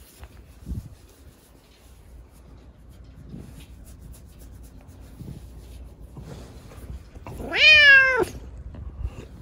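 A tabby kitten lets out one loud meow about three-quarters of the way in while being scratched; the meow rises and then falls in pitch.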